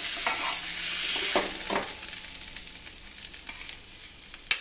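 Metal spatula scraping and scooping spiced potato filling in a metal kadai, with a light sizzle from the hot pan that fades after about a second and a half. A sharp metal tap comes near the end.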